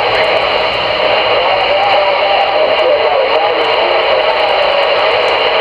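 Loud, steady CB radio static hiss on channel 22 from a CRE 8900 receiver, with a faint wavering whistle of a garbled, unreadable signal underneath it.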